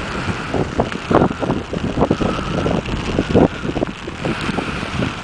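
Strong wind buffeting the microphone in irregular gusts, a rumbling rush of noise.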